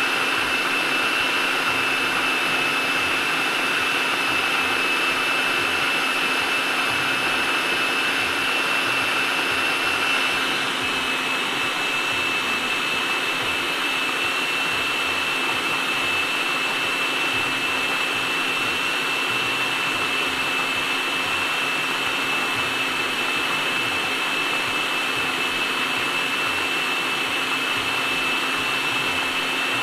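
Electric food processor motor running at high speed, a steady whine over a rushing noise as it purées a thick chickpea and tahini paste. The sound eases slightly about ten seconds in, then holds steady.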